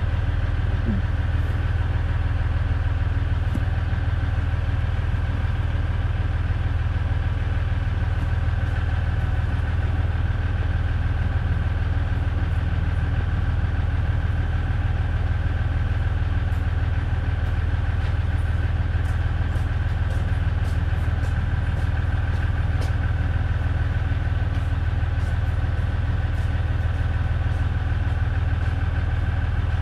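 A 2015 Ram pickup's engine idling steadily, heard from inside the cab.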